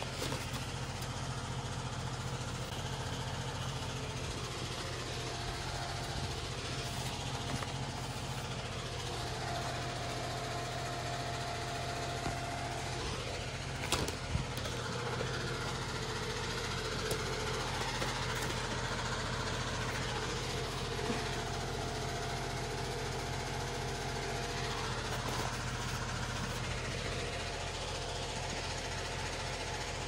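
Fan motor running steadily with a low, even hum, blowing a dusting of flour over greenhouse plants to kill and deter grasshoppers. One sharp knock about fourteen seconds in.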